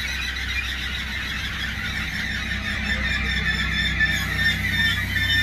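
Pågatåg electric commuter train (Alstom Coradia Nordic X61) standing at the platform with its equipment humming low and steady, while a continuous, wavering high-pitched squeal sounds over it. A hiss joins in about four seconds in.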